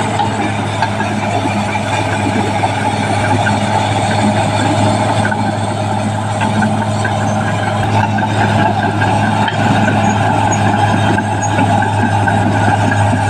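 Caterpillar D6R XL bulldozer's diesel engine running steadily under work, with a constant low drone and a steady mid-pitched mechanical noise and no clear revving.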